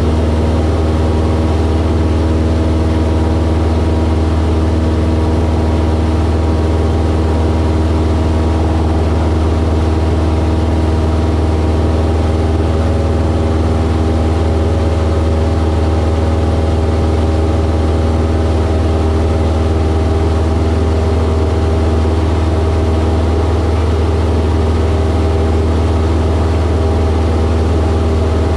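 Single-engine propeller aircraft's piston engine and propeller running steadily, heard inside the cockpit as a deep, even drone with a constant pitch.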